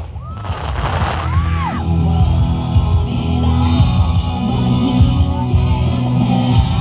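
Crowd cheering and whooping for the first couple of seconds, then music with singing over a steady bass line.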